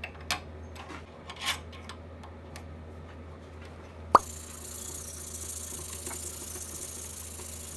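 Light clicks and taps of metal parts being handled as a pen blank is fitted on a lathe mandrel, then a single sharp pop about four seconds in. After the pop comes a steady hiss of sandpaper rubbing on the cocobolo-and-epoxy blank.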